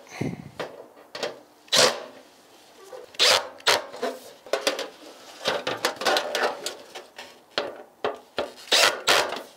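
Nuts on a metal patio heater's base being tightened with a wrench, in a run of short, irregular strokes about once a second.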